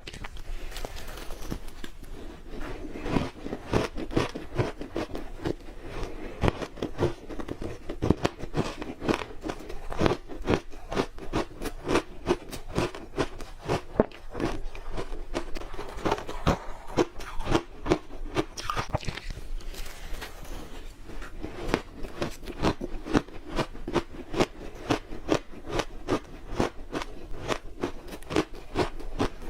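Ice being bitten and chewed close to the microphone: a continuous run of sharp, crisp crunches and cracks, many per second.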